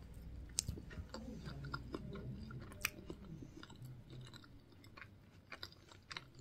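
A person chewing a mouthful of soft glazed doughnut topped with chocolate cookie pieces, close to the microphone, with a few sharp clicks from the mouth.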